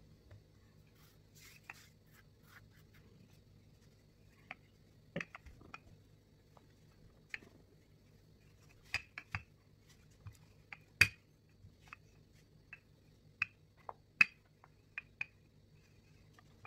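Wooden rolling pin rolling out pie dough on a floured mat: irregular light clicks and knocks as the pin is pushed and turned, over a faint steady low hum.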